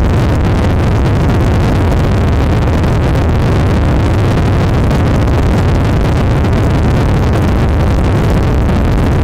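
Steady, loud low rumble and rushing noise of ships underway at sea during refuelling, with no change through the stretch.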